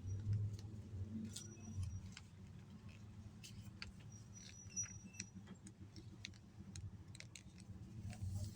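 A sheet of paper being handled and folded by hand: scattered crackles and taps over a steady low hum.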